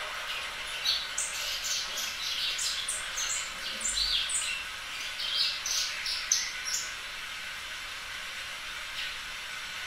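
Rapid high chirps, as of small birds calling, over a steady background hiss; the chirping dies away about seven seconds in.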